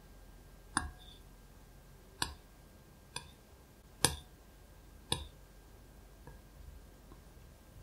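A thin metal dipping tool taps against a glass bowl five times, unevenly spaced, each a sharp click with a brief glassy ring, as it turns a truffle in melted chocolate.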